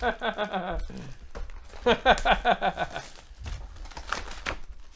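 A man's voice speaking in two short stretches, then the crinkling of trading-card foil pack wrappers and plastic wrap being handled, a quick run of crackles near the end.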